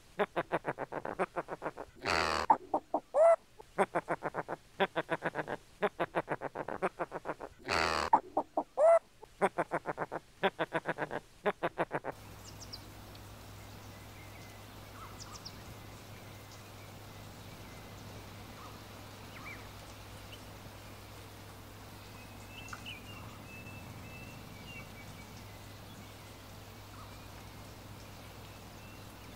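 Macaws calling: a rapid run of pulsing chatter broken by two loud squawks. About twelve seconds in it cuts off suddenly to a faint steady hiss with a low hum, with a few faint high bird chirps and short trills.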